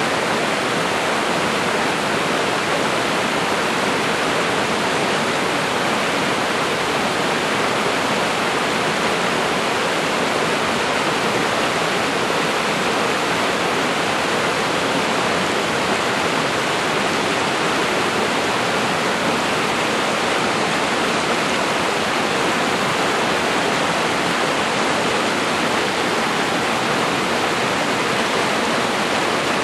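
Swift stream running high after rain, water rushing and splashing over granite boulders in a loud, steady wash.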